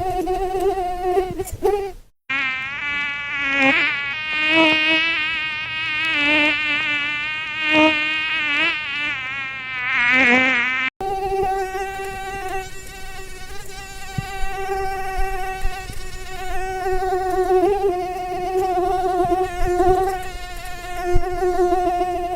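Mosquito wingbeat whine, a high thin buzz. It holds a steady pitch, then after a brief dropout a few seconds in it wavers up and down in pitch and loudness for several seconds, as if the mosquito is flying close past. After another brief dropout it settles back to a steady whine.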